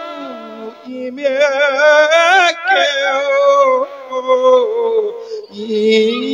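A Thai Buddhist monk singing a sorrowful verse (klon sok) in a sung sermon into a microphone: long held notes with heavy vibrato and sliding ornaments, with short breaks for breath.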